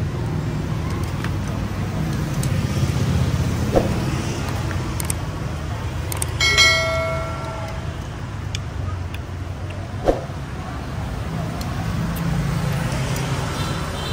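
Steady street traffic and motorbike noise. There are a couple of light knocks, and about six and a half seconds in a loud ringing tone sounds for about a second.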